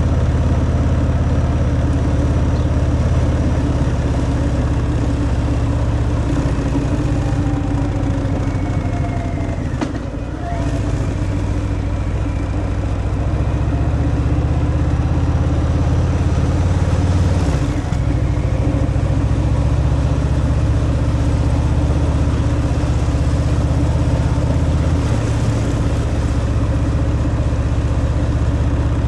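Harley-Davidson Fat Boy's V-twin engine running through its stock exhaust while riding. The engine note dips and picks up again about ten seconds in, and shifts again near eighteen seconds.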